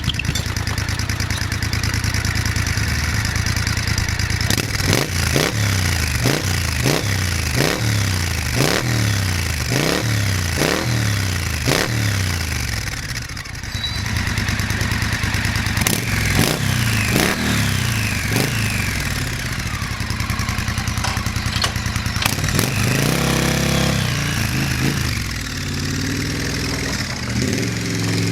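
Triumph parallel-twin motorcycle engine breathing through a Dueller 2-2 big bore decat exhaust with the quiet 6-hole baffles fitted. It idles, then is blipped about eight times in quick succession, revved a few more times, and given one longer rev before settling back to idle.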